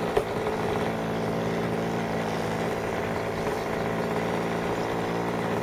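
Saito three-cylinder radial four-stroke model engine of an RC scale Deperdussin running steadily in flight, holding an even pitch.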